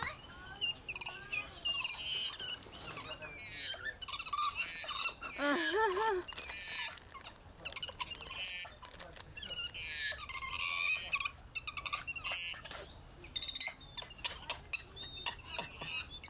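Spider monkeys squeaking and chirping in quick, high-pitched calls, with one quavering whinny about six seconds in.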